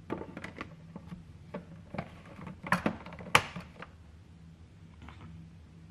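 Hands working a food processor before it is switched on: a run of sharp clicks and knocks, about eight in all, the loudest two close together about three seconds in, over a faint steady low hum.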